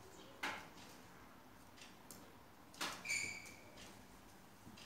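A few sharp taps and knocks as a kitten plays with a wand toy on a hard tile floor, with a short, steady, high-pitched squeak about three seconds in.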